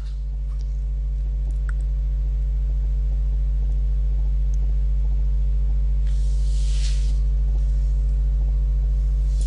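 Steady low electrical hum with a buzz of overtones, typical of mains hum picked up in the recording. A short soft hiss comes about six seconds in.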